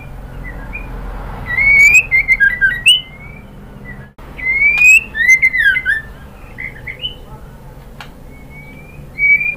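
White-rumped shama (murai batu) singing: loud song phrases that each open with a rising whistle and break into quick chirps and falling notes, three loud bursts and a fainter one, with pauses between.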